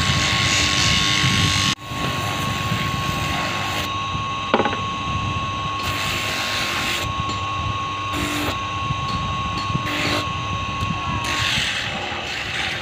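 Small electric sanding disc spinning with a coconut-shell ring blank pressed against its sandpaper, a steady grinding hiss over a constant motor whine. A sharp tick sounds once near the middle, and the whine stops shortly before the end.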